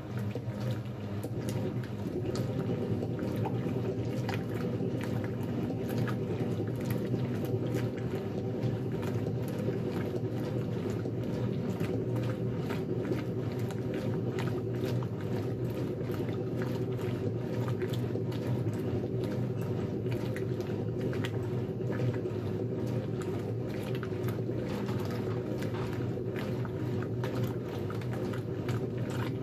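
1957 Blackstone 350 automatic washer in its wash agitation, churning a load of work pants in soapy water. A steady mechanical hum runs under continuous sloshing and splashing of the water.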